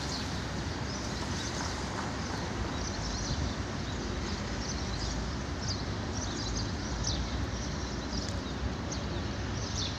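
Steady outdoor background noise with a low rumble, and small birds chirping again and again throughout.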